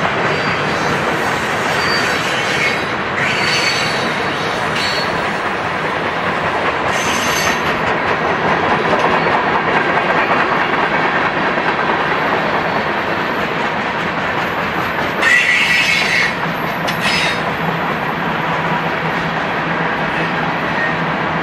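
Long freight train of mixed cars rolling past: a steady rumble and clatter of wheels on rail. Brief high-pitched wheel squeals sound several times, the loudest about fifteen seconds in.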